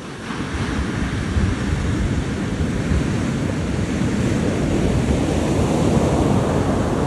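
Ocean surf breaking, with wind buffeting the microphone; the rush of the waves grows louder about half a second in and then holds steady.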